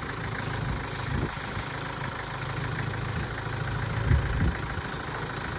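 Tractor engine running at a steady idle.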